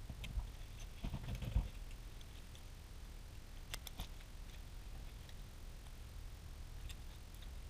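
Faint small clicks and ticks of a tiny hex key and diecast metal parts handled while a micro screw is turned into a 1/64 scale truck's wheel spindle. There is a cluster of light clicks about a second in and two sharp clicks close together around four seconds in.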